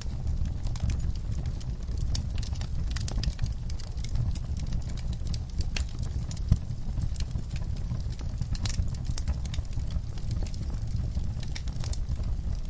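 Wood fire crackling and popping in quick, irregular snaps over a low steady rumble, with one sharper pop about halfway through.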